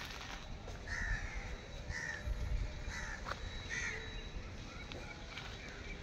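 A crow cawing four times, about once a second, with a low rumble of wind on the microphone.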